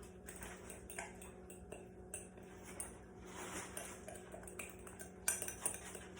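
A utensil clinking and scraping against a bowl while stirring an egg-and-cheese filling: scattered light clicks, a longer scrape around the middle and a few louder knocks near the end, over a faint steady hum.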